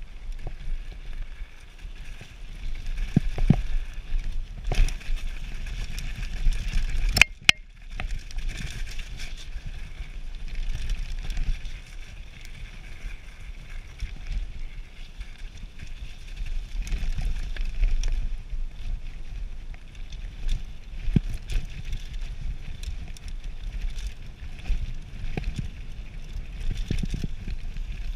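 Enduro mountain bike rolling fast down a rough dirt and gravel trail: tyre and ground noise with rattles and knocks from the bike over bumps, and low wind rumble on the camera microphone. One sharp, loud knock comes about seven seconds in.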